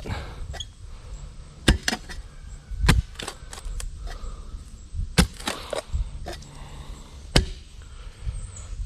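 A hand digging tool chopping into soil and tree roots while digging a fence-post hole: a series of sharp strikes, four of them louder, spaced one to two seconds apart, with lighter knocks between.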